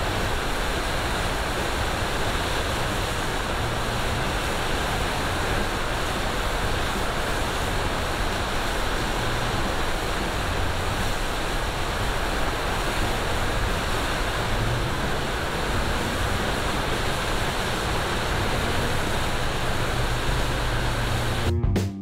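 Partly frozen waterfall: water pouring over icy rocks with a steady, even rush.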